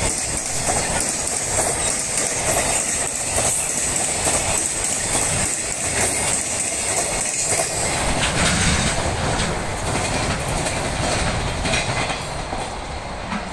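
Container freight train wagons rolling past, their wheels clacking over the rail joints. The clacks thin out after about eight seconds as the last wagons go by, and the rumble drops a little near the end as the train moves away.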